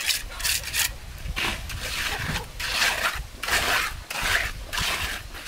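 Steel trowel scraping and smoothing wet concrete, in repeated rasping strokes about twice a second.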